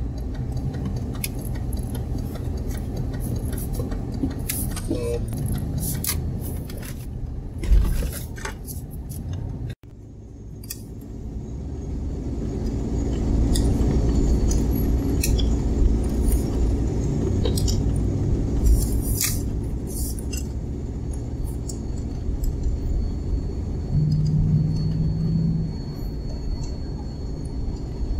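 Car engine and road noise heard from inside the cabin through a dashcam microphone: a steady low rumble with scattered light rattles and clicks. The sound breaks off sharply about ten seconds in, then builds back up.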